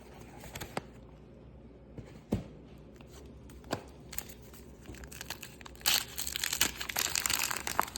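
Wax-paper baseball card pack being handled and torn open: a few light taps at first, then from about six seconds in a dense crinkling and tearing of the waxed wrapper.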